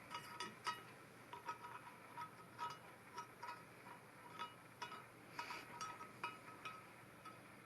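Faint, irregular light metallic clicks and clinks, two or three a second, from a steel go/no-go thread plug gauge being worked in the tapped bolt holes of an exhaust manifold.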